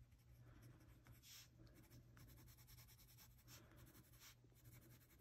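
Faint scratching of a marker tip on coloring-book paper in a series of short, irregular strokes, over a low steady hum.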